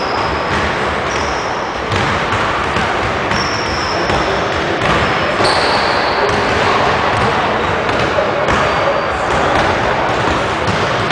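Basketballs bouncing on a hardwood gym floor amid the steady din of a busy gymnasium, with brief high squeaks several times.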